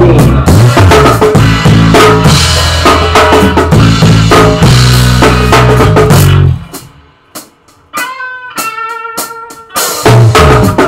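Garage rock band playing: guitar, bass and drum kit in full, then dropping out about two-thirds through to a short quiet break with a few sparse hits and held notes, before crashing back in together near the end.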